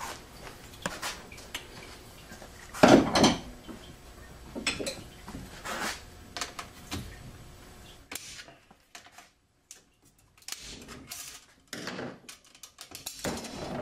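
Metal clinks, knocks and scrapes of steel transmission parts as a snap ring is pried off a Ford 6R80's A clutch (1-2-3-4) drum and the drum assembly is worked apart. The loudest clank comes about three seconds in, with quieter gaps about two-thirds of the way through.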